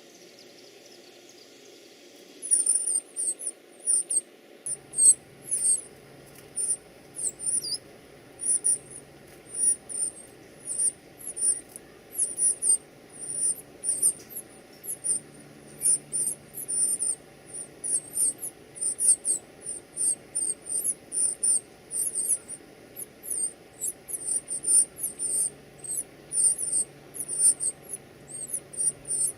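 Baby birds begging for food: a rapid, continuous run of shrill, very high-pitched cheeps that starts about two seconds in.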